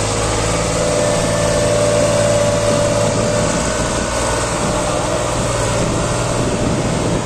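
New Holland 3600-2 tractor's three-cylinder diesel engine running steadily under load as it pulls a heavily loaded trolley.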